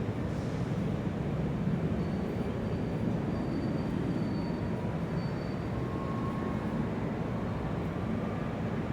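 Large airport's exterior ambience: a steady low hum from the tarmac and distant aircraft, with faint thin high whines drifting in and out a couple of seconds in.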